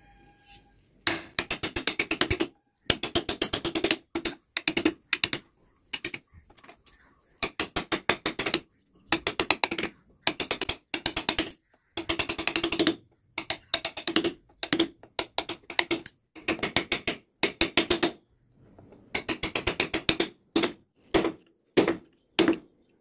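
A woodcarving chisel being struck in quick runs of taps as it cuts waste wood away from a carved outline. The runs last about a second each, with short pauses between them.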